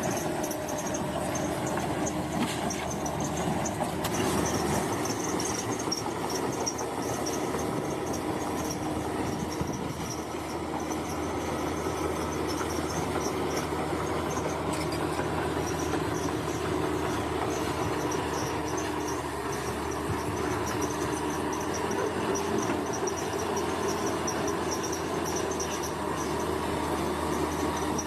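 Large crawler bulldozer working: diesel engine running steadily, with the continuous metallic clatter of its steel tracks. Insects chirp on a pulsing high note over it.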